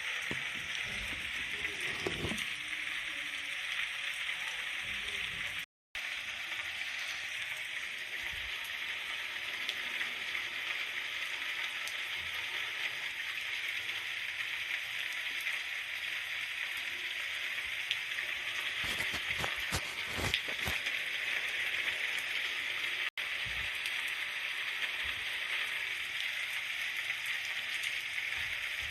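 Steady rain falling, an even hiss, with a momentary cut to silence about six seconds in.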